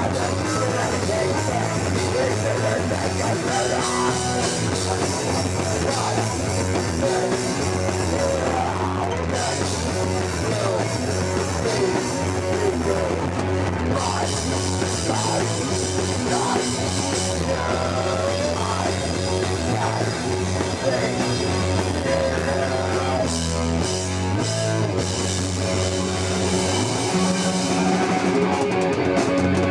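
A punk band playing live, with distorted electric guitar, bass and a drum kit with crashing cymbals.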